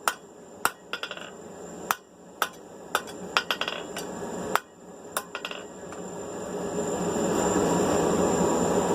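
Blacksmith's hand hammer striking hot steel tong blanks on an anvil while bending and shaping the offset: about a dozen irregular blows, a few with a short metallic ring. The blows stop about five and a half seconds in, and a steady rushing noise builds in their place.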